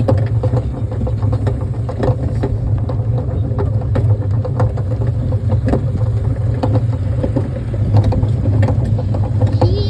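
Kiddie train running with a steady low drone and frequent light clicks and rattles.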